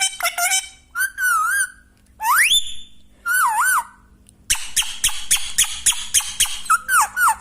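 Parrot whistling and chirping: a run of quick repeated chirps, two wavering whistles with a rising whistle between them, then a longer run of rapid chirps.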